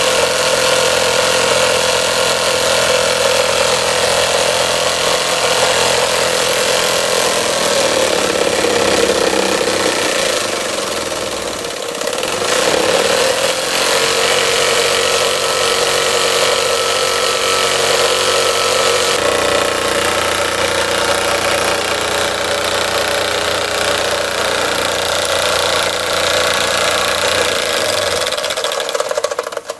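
Model two-cylinder steam engine running and driving a small dynamo: a continuous mechanical running sound with a steady pitch. Its speed sags and picks up again about ten to twelve seconds in, and shifts once more about two thirds of the way through.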